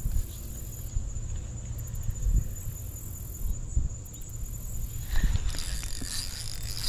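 Spinning reel being cranked to bring in a hooked fish or turtle, with low knocks and rumble from handling the rod, over a steady thin high insect buzz; a brighter scratchy rustle joins about five seconds in.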